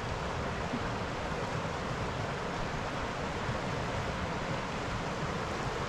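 A large river rushing steadily, with a low, uneven rumble of wind on the microphone.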